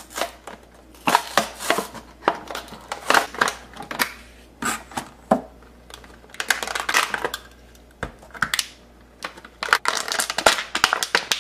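Clear plastic blister packaging crackling and crunching in irregular bursts as hands work a die-cast toy car out of its tray.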